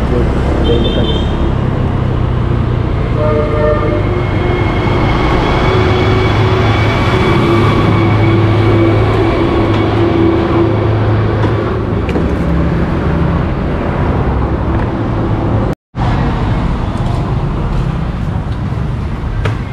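Road traffic noise: vehicles running, with a steady low rumble and short horn toots about one second and about three seconds in.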